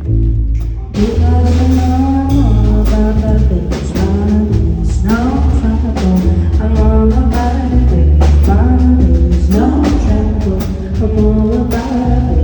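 Jazz band playing live, with a singer's voice coming in about a second in over a heavy stepping bass line and drum strikes.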